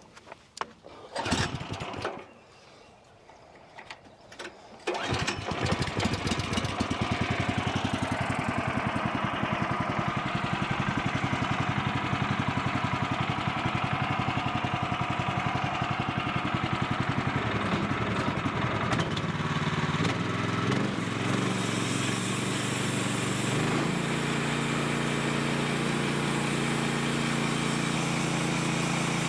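A few short knocks, then an engine starts about five seconds in and runs steadily, its note changing to a lower, fuller sound around twenty seconds in.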